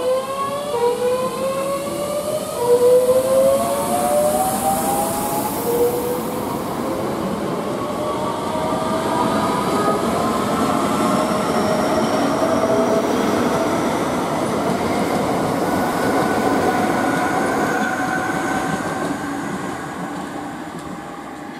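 Southeastern Class 465 Networker electric multiple unit accelerating away: its traction motors give a series of rising whines that climb in pitch step after step, over the rumble of wheels on the rails. The sound fades near the end as the train draws away.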